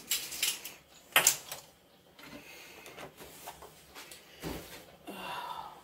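Scattered knocks and clicks of kitchen utensils being handled, the sharpest about a second in, as a set of plastic measuring spoons is fetched and set down on the counter, with a dull thump near the end.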